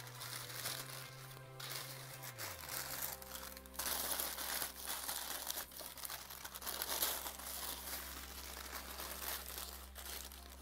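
White tissue paper rustling and crinkling as hands unfold it inside a shoe box, louder from about four seconds in. Soft background music with long held notes plays underneath.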